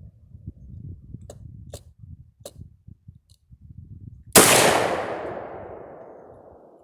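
A single rifle shot from a SIG rifle in 7.62x39, very loud and sudden about four seconds in, its echo fading over the next two seconds or so. A few faint sharp cracks come before it.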